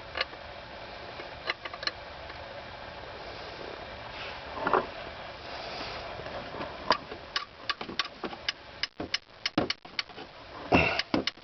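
Hand tools clicking and tapping on a rusted, stuck motor-mount nut that will not break loose. A few scattered clicks are followed, about seven seconds in, by a quick irregular run of sharp metal taps.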